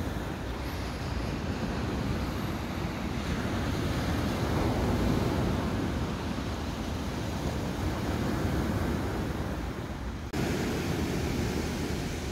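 Sea surf breaking on the beach with wind rumbling on the microphone, a steady rush that swells and eases; it breaks off abruptly about ten seconds in and resumes at once.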